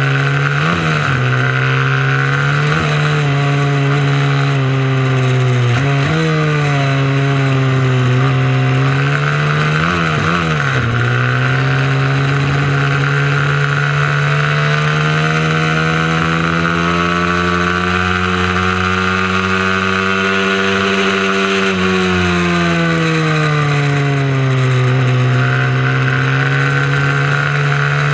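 Mini moto race bike engine at racing speed, its revs rising and falling. There are quick dips and pick-ups in pitch around 1, 3, 6 and 10 seconds in, then a long steady climb in revs, a drop a little past the 20-second mark, and a climb again.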